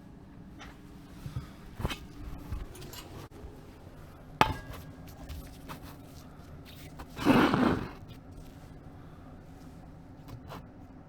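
Work noises: a few knocks, one with a short metallic ring about four seconds in, then a brief scrape or rustle around seven seconds, over a low steady hum.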